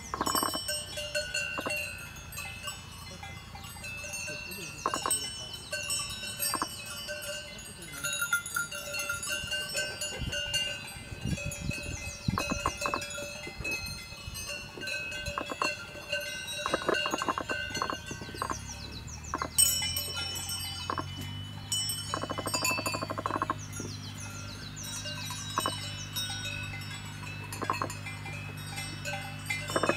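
Cowbells ringing and clanking irregularly, with high bird calls above them. A low steady hum sets in about two-thirds of the way through.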